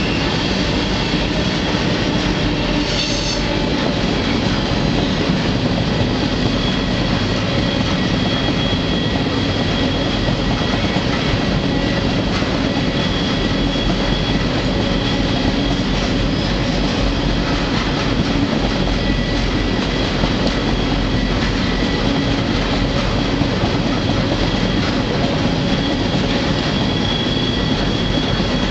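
Freight train rolling at speed, heard from aboard a car: a steady rumble and rattle of steel wheels on rail, with a thin, steady, high-pitched wheel squeal running through it and a brief rattle about three seconds in.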